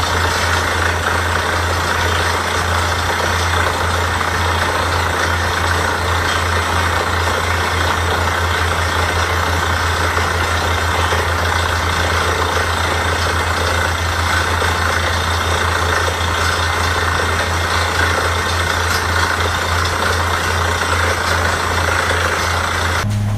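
Borewell drilling rig running steadily: a constant low engine hum with an even hiss above it, changing abruptly near the end.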